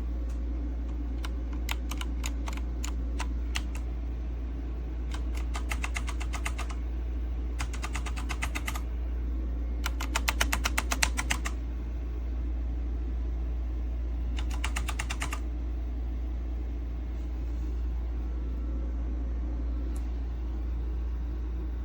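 Typing on a mechanical keyboard: about five short runs of rapid key clicks, the longest about a second and a half, over a steady low hum.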